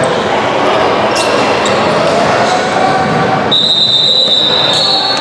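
A basketball is dribbled on a hardwood gym floor, with sharp bounces ringing through a large, echoing hall full of players' noise. About three and a half seconds in, a long high steady tone starts and holds.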